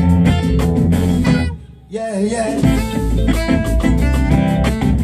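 A live band playing: electric guitars, bass and saxophone over a steady beat. The band stops briefly about a second and a half in, then comes straight back in.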